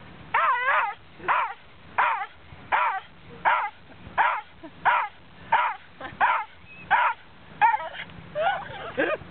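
Dog giving a rapid string of high-pitched, excited yelping barks, about one and a half a second, each call falling in pitch. The dog is too wound up over a stick to stay quiet.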